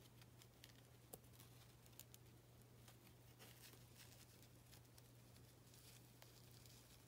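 Near silence: faint rustling and a few light clicks as feathers are handled and pressed around a pen, over a steady low hum.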